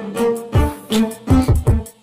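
Intro music: held pitched notes over heavy low bass thumps.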